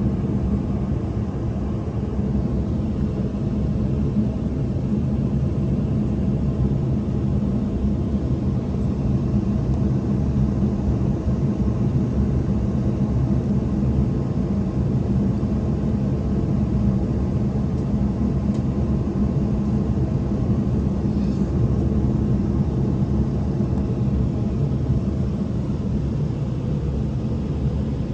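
Embraer E190-E2 airliner heard from inside the cabin while taxiing, its Pratt & Whitney PW1900G geared turbofans at low power: a steady low rumble with a constant hum.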